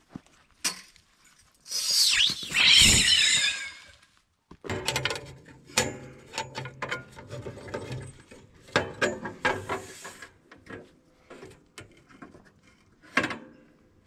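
Metal clicks, knocks and rattles from handling a band sawmill's blade and wheels while the blade is being changed. A loud, wavering squeal that bends up and down in pitch comes about two seconds in.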